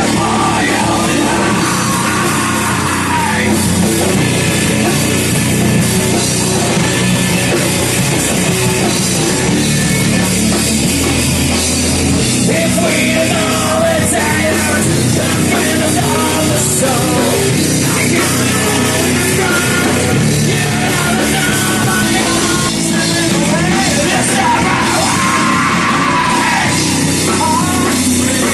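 A heavy metal band playing live at full volume: distorted electric guitars, bass and drum kit, with shouted or sung vocals.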